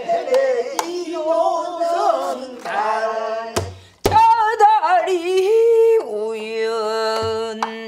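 A woman sings a Namdo folk song (namdo minyo) with wide vibrato and long held notes. A buk barrel drum is struck twice in quick succession about halfway through, and once more softly near the end.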